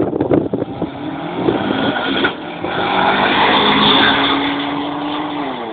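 Car accelerating hard past at full throttle. The engine note climbs steadily, is loudest as the car draws level, and drops sharply near the end.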